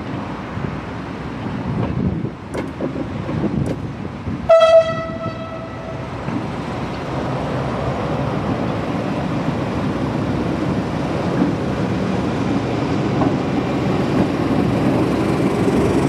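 BB 63500-series diesel shunting locomotive giving one short, single-note toot on its horn about four seconds in. Its diesel engine rumbles louder as it pulls past.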